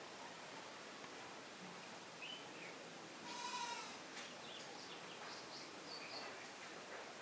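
A goat bleats once, briefly, about three seconds in, over faint bird chirps.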